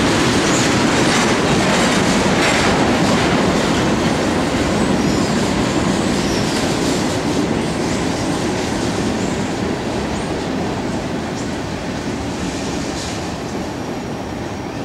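Freight cars of a mixed freight train rolling past on steel rails, a steady wheel-on-rail rumble that gradually fades as the end of the train passes.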